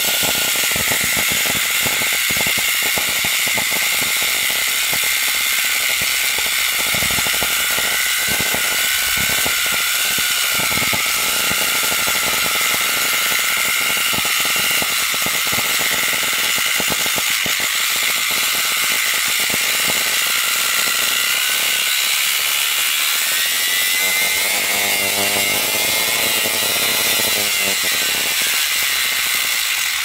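Vacuum cleaner motor running flat out on its own, a loud steady high whine over rushing hiss, being run until it burns out. The pitch wavers in the last few seconds, and the sound cuts off suddenly at the very end as the motor fails in a burst of smoke.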